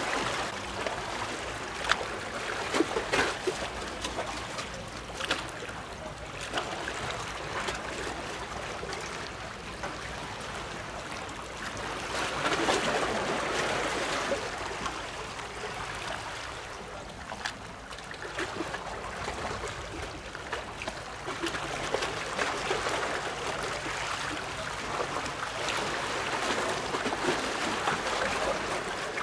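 Small waves lapping and splashing, swelling and easing every few seconds, with scattered small splashy ticks.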